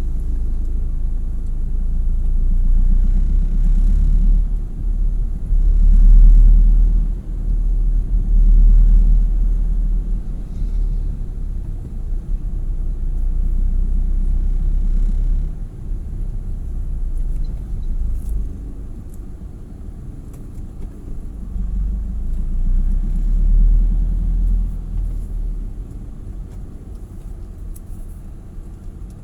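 Low rumble of a vehicle on the move, swelling and fading in loudness with no steady engine note.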